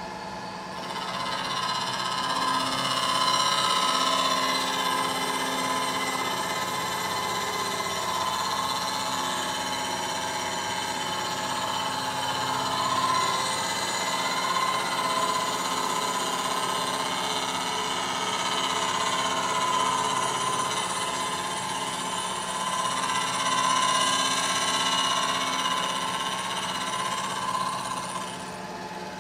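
Face mill with polished Walter WK10 inserts, spinning at 800 RPM on a milling machine, taking a light facing cut across an aluminum water pump housing. The cutting noise, a steady sound with several high held tones that swell and ease, comes in about a second in and drops back to the spindle's running hum near the end as the cutter clears the part.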